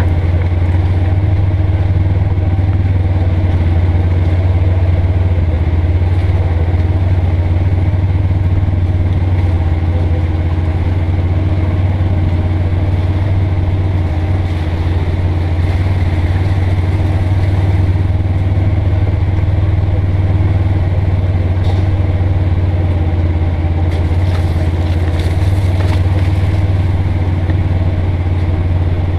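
Polaris Ranger XP 900 side-by-side's twin-cylinder engine running at a steady speed, a loud, even low drone that does not rev up or down.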